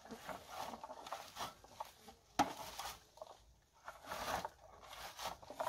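Red berry picker being raked through bilberry bushes, bursts of rustling and scraping as berries are stripped from the twigs, with one sharp click about two and a half seconds in.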